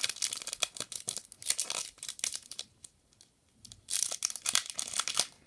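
Crinkling and rustling of a foil trading-card booster pack wrapper and cards being handled, in short crackly bursts with a pause of about a second in the middle.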